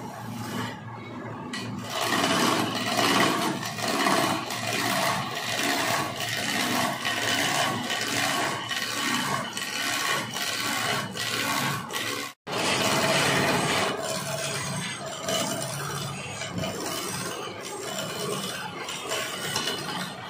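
Wood lathe spinning a large log while a turning chisel scrapes and cuts into the rotating wood: a steady rasping with a regular pulse. It breaks off for an instant about twelve seconds in.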